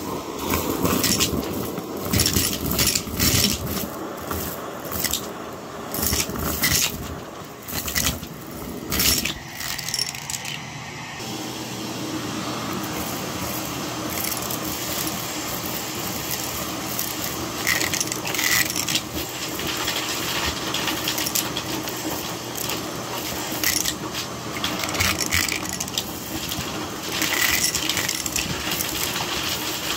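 Vacuum cleaner running over carpet, with a steady hum and small hard debris crackling and rattling as it is sucked up; the clicks are thickest in the first part and the hum steadier later.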